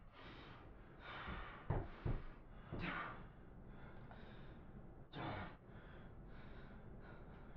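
A man gasping and breathing heavily in a series of ragged breaths, several close together in the first three seconds and one more about five seconds in, as he comes round after being thought dead.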